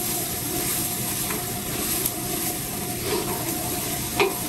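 Tomato paste and mushrooms frying in olive oil in a stainless steel stockpot, with a steady sizzling hiss while a spatula stirs; a few sharp clacks of the spatula against the pot, the loudest about four seconds in.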